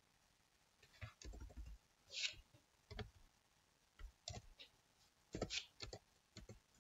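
Computer keyboard keys pressed one at a time as text is typed: faint, irregular single clicks starting about a second in.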